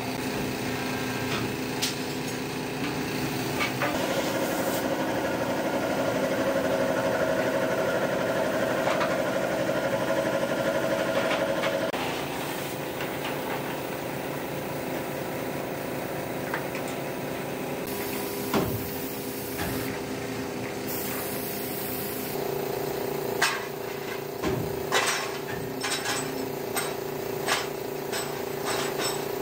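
Air spray gun hissing as it sprays the brake shoes, over the steady hum of workshop machinery. The hum is louder for several seconds early on. In the last few seconds there is a string of sharp metallic clinks as aluminium brake shoe castings knock together.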